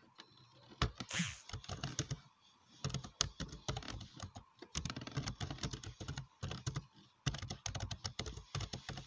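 Typing on a computer keyboard: rapid runs of keystrokes broken by short pauses.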